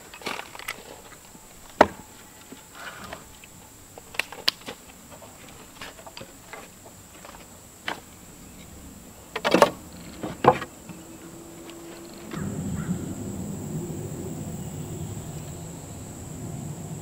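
Scattered knocks and taps of boards and hand tools being handled on a wooden workbench, with two louder knocks a second apart partway through. Under them runs a steady high buzz of insects. Late on, the background changes to a fuller, lower rumble.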